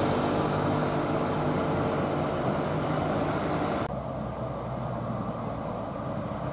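Diesel engine of a Hino cargo truck running as it drives past, over road noise. A little under four seconds in, the sound cuts abruptly to a quieter, lower rumble of heavy vehicles approaching.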